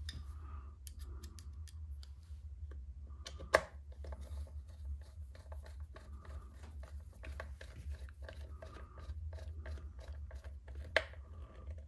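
Hand screwdriver driving small screws into an RC car's plastic chassis: a run of light irregular clicks and scrapes, with two sharper clicks, one about three and a half seconds in and one near the end.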